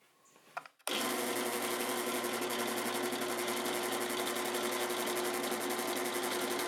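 Electric drill starting up about a second in and running steadily at constant speed with a hum, drilling the snapped-off plastic feet out of a telegraph key's base.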